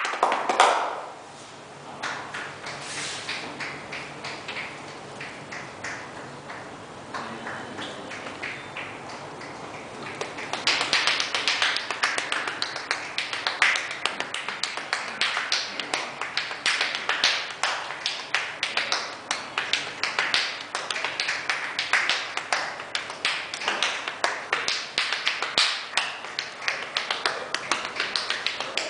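Percussive hand massage (tapotement): the therapist's fists and hands strike rapidly on a client's body, making a string of sharp slaps and taps like hand-drumming. The strokes are softer and sparser for the first ten seconds or so, then turn into a fast, louder run of many strikes a second.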